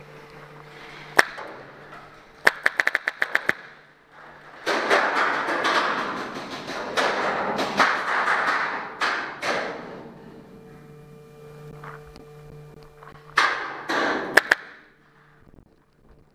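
Paintball marker firing rapid strings of shots, about eight in a second, around two and a half seconds in and again near the end, with a single shot before them. A loud stretch of rough noise fills the middle.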